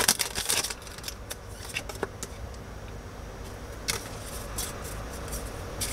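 Pokémon trading cards and booster-pack wrapper being handled: a brief rustle at the start, then a few scattered soft clicks over a steady low hum.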